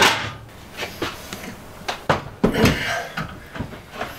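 A gas range's hinged metal cooktop clunks down shut, followed by several lighter knocks and taps as it is settled into its wooden cabinet.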